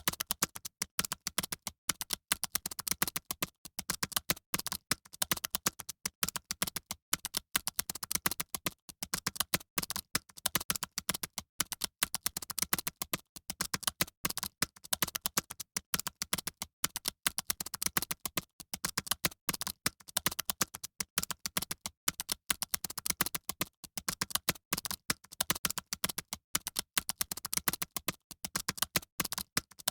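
Fast typing on a computer keyboard: a rapid, unbroken stream of key clicks.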